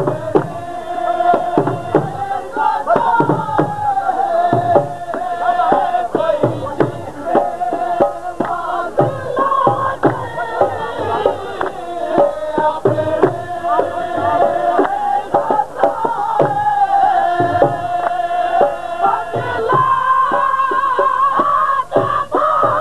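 Dhol drum beaten in a steady rhythm under singing of a Punjabi folk song (dhol geet), the melody wavering without a break.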